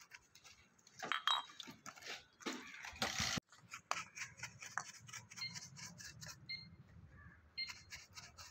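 A brush scrubbing a soapy carburettor body in quick strokes, about four a second, after wet rag rubbing on a soapy carburettor part in the first seconds.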